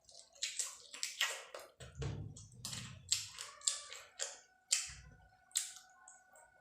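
Close-up wet chewing and lip-smacking clicks of a person eating rice and curry, several sharp smacks a second.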